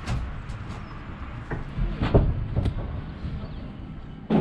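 Footsteps and knocks on wooden scaffold boards, a few separate thuds with the loudest about halfway through and a sharp one near the end, over a steady low rumble.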